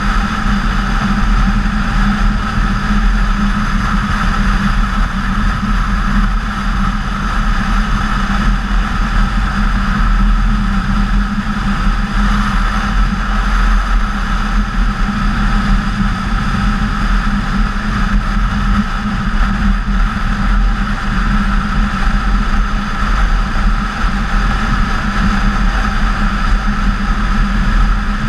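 BMW K1600GTL motorcycle's inline-six engine running at a steady cruise, with wind rush. The engine's pitch holds nearly even throughout.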